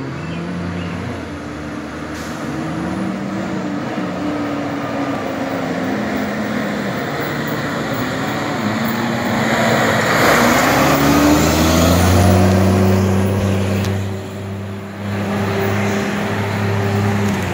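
Fire engine's diesel engine accelerating up the street, its pitch climbing and dropping several times as it shifts gears, then holding a steady note as the truck drives away. It is loudest about ten to twelve seconds in, with a rush of noise as it passes close by.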